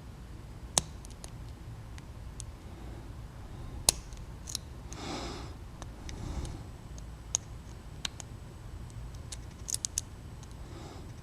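Lock pick and tension wrench working the pins of a 5-pin Papaiz padlock with spool drivers: scattered, irregular small metallic clicks and ticks, a few sharper than the rest, with a brief soft rushing sound a little past the middle.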